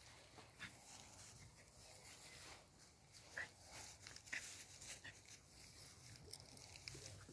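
Near silence, with faint rustling as miniature pinschers push through grass and clover, and two brief, faint whines from one of the dogs about three and a half and four and a half seconds in.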